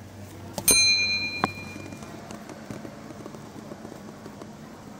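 A click followed by a bright bell ding that rings out and fades over about a second and a half, with a second light click partway through: the notification-bell sound effect of an animated subscribe-button overlay.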